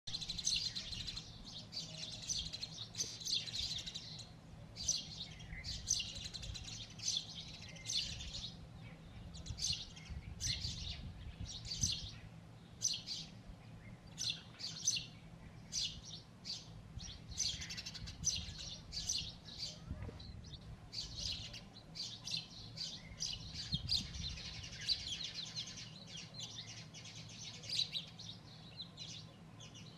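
House sparrows chirping loudly at the nest: a steady stream of short, sharp chirps, sometimes several a second and overlapping.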